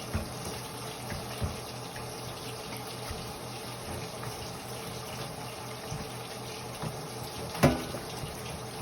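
Steady running water, with a few light knocks and one louder knock near the end.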